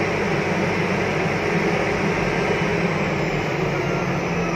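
Caterpillar 777 haul truck's diesel engine running steadily while the truck drives, heard from inside the cab as an even low hum with drivetrain noise.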